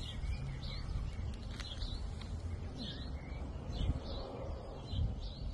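A small bird chirping over and over, short high chirps about one or two a second, over a low steady rumble.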